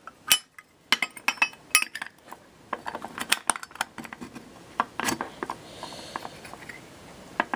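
Zippo pocket lighter being handled: scattered sharp metallic clicks and clinks from its metal case and insert, irregularly spaced.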